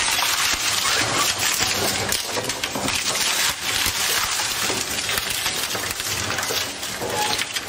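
Twin-shaft industrial shredder's hooked rotor teeth tearing a wooden board apart: a dense, continuous run of cracking and splintering wood.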